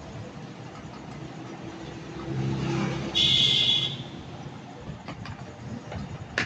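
Drill machine's electric motor run briefly: a low hum starts about two seconds in, then a loud high whine lasts under a second. A sharp click comes near the end.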